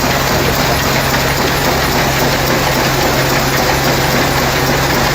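An engine or motorized machine running steadily at a constant speed, with a low hum under a broad mechanical noise.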